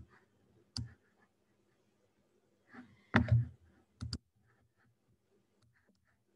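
A few sharp clicks and taps close to the microphone in a quiet small room, the loudest a cluster about three seconds in and two more just after four seconds.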